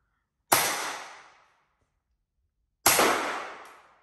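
Umarex Glock 17 Gen 5 CO2 blowback pellet air pistol (.177) fired twice, a little over two seconds apart. Each shot is a sharp report that dies away in the small range room over about a second.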